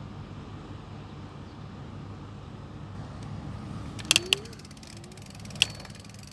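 A steady low engine rumble, with a few sharp clicks about four seconds in, quick faint ticking after them, and one more click near the end.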